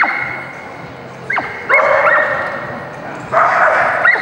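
Dog barking repeatedly, about six sharp barks spread across the few seconds, each ringing out with a hall echo.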